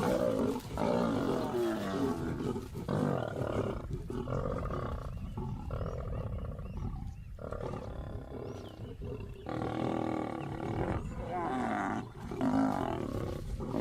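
Lions snarling and roaring in a run of harsh calls about a second long each: male lions driving a lioness off a kill.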